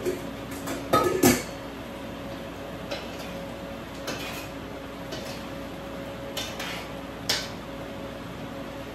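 Kitchen dishes and utensils clattering: a cluster of knocks about a second in, then a few lighter clinks and taps, over a steady low hum.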